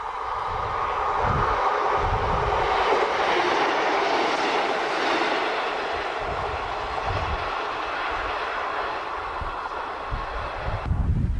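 British Rail Class 155 two-car diesel multiple unit passing close by: the rush of its engines and wheels on the rails builds, peaks a few seconds in, then eases as it draws away, and cuts off suddenly near the end.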